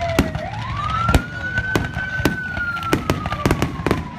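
Fireworks display: a dozen or so irregular sharp bangs and crackles of aerial shells bursting, the loudest about a second in. Beneath them a siren wails, rising in pitch about half a second in and then slowly falling.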